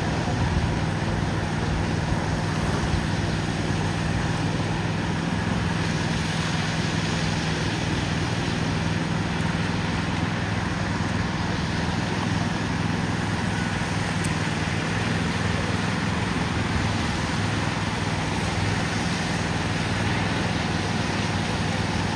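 Steady construction-site noise: a heavy engine running at a constant speed, a low hum under an even hiss.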